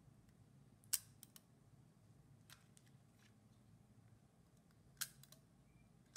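Leaf shutter of an Argus A Model AF 35mm camera clicking as it is fired at different speeds: a sharp click about a second in and another about five seconds in, each followed by a couple of lighter clicks, with a fainter click in between.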